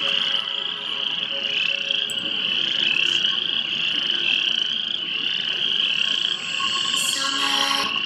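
Chorus of many frogs calling at once, a steady high trill that does not let up.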